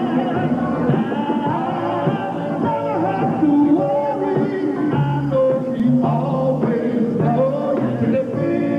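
Gospel quartet singing live with guitar accompaniment.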